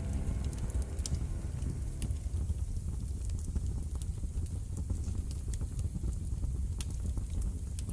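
A fire burning: a steady low rumble with scattered sharp crackles and pops. Music fades out over the first second or two.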